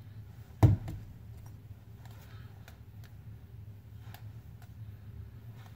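A ball of grape slime slapped into a hand, one loud slap under a second in, then faint sticky clicks and pops as it is squeezed and pulled between the fingers.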